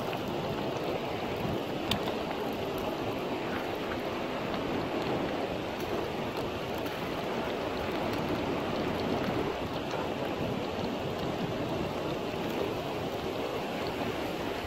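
Steady rush of a fast river flowing over rocks, with one faint click about two seconds in.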